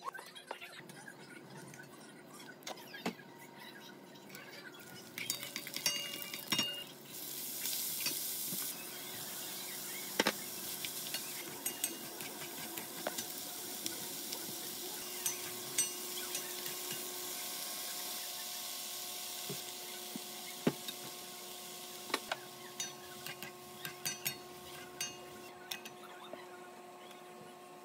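Knife taps on a wooden cutting board, then pork, cabbage and bell peppers sizzling in a frying pan from about seven seconds in, stirred with a wooden spatula that taps and scrapes against the pan.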